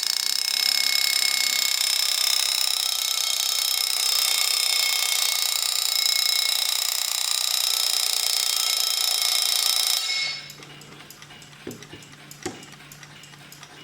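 Late-1920s Peter mantel alarm clock's bell alarm ringing loudly and steadily for about ten seconds, then cutting off. The clock then ticks quietly, with two soft knocks.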